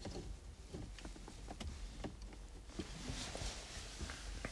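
Faint, scattered small clicks and light rustling of hands handling gear inside a car.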